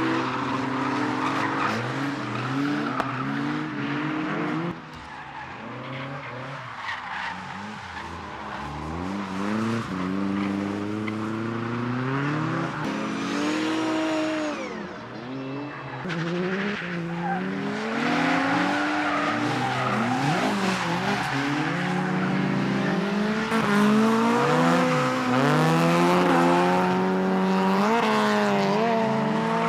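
Retro cars on track, engines revving hard and dropping back in pitch between gear changes and throttle lifts, with tyres squealing and skidding as they slide. The engines fall away about five seconds in and again midway, and are loudest in the second half.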